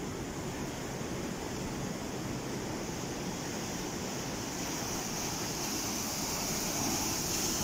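Sea surf breaking against the concrete tetrapods of a breakwater, a steady rumbling rush of waves that grows a little louder near the end.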